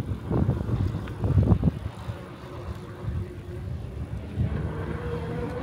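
Wind buffeting the microphone of a rider moving on an e-bike, with two louder gusts in the first two seconds. A faint steady whine, rising slightly in pitch, comes in during the second half.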